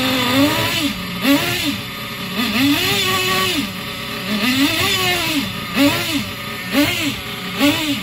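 HongNor nitro engine in a radio-controlled car, revved in a string of throttle blips, each rising in pitch and dropping back to idle. Some are short stabs and two are held for about a second, with the blips coming quicker near the end.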